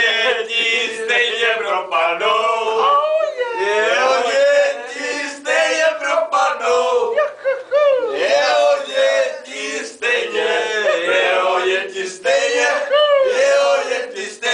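A group of men chanting and singing together loudly in rough unison, phrase after phrase, a crude mocking chant.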